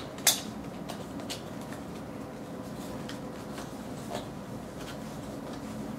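Hands working at the top flap of a cardboard retail box: one sharp tap just after the start, then faint scrapes and light taps of fingers on the cardboard as the hard-to-open box is pried at.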